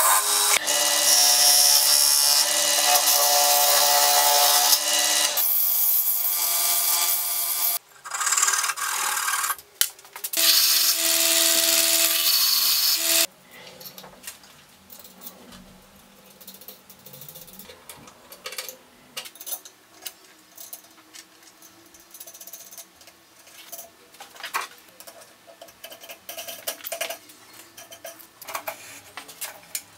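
Wood lathe running while a turning tool cuts a small wooden piece held in its metal chuck: a loud cutting hiss over the motor's steady hum, breaking off briefly twice and stopping about thirteen seconds in. After that, faint small clicks of a bolt, washer and wing nut being handled and fitted onto a small wooden wheel.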